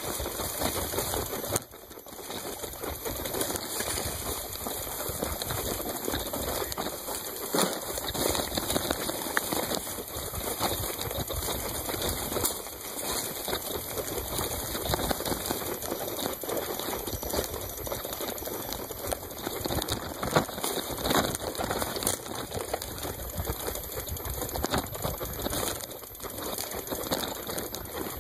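Mountain bike ridden over a rough dirt and grass trail: a dense, steady clatter of tyres on bumpy ground and the bike and its handlebar-mounted camera rattling.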